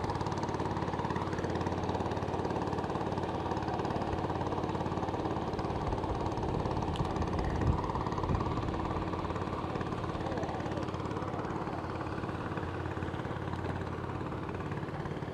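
An engine running steadily, a constant even hum, with one short knock about eight seconds in.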